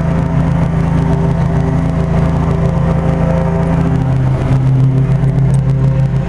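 Central air-conditioning condensing unit running: a steady, loud electrical hum from the compressor with the whir of its three-bladed condenser fan.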